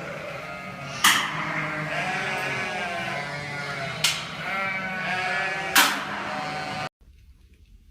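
Bleating: long, wavering calls from a farm animal, broken by three sharp clicks, about one, four and six seconds in. It cuts off abruptly near the end, leaving only faint sound.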